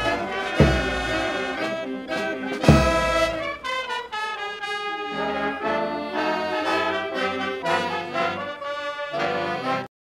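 Marching brass band playing, trombones and trumpets to the fore, with two heavy bass drum strikes in the first three seconds. The music cuts off abruptly at the very end.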